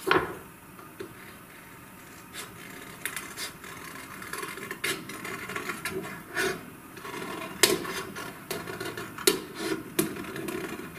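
Scissors cutting through a sheet of brown coloured paper, with irregular snips and the paper rustling and scraping as it is turned.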